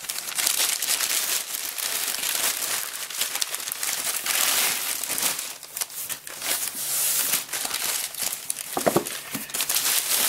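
Paper packing crumpling and crinkling as it is pulled off a box by hand: an uneven run of rustles and sharp crackles with short pauses.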